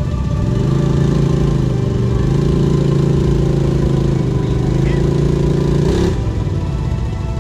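Quad (ATV) engine revved and held at high revs, its pitch wavering a little, while the quad is stuck on a sandy slope. The revs drop away about six seconds in.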